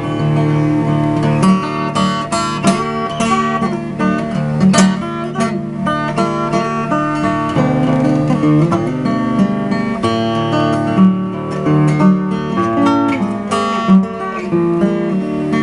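Acoustic guitar played alone in an instrumental break, fingerpicked with some strumming, a folk-blues accompaniment with many short plucked notes over a steady bass.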